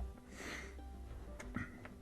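Soft background music with steady held tones, and a short breath-like hiss about half a second in.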